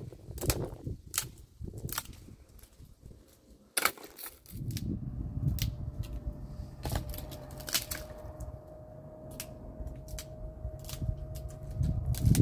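Scattered sharp snaps and cracks, the loudest about four seconds in, then a low rumbling noise with a faint steady hum and a few more clicks.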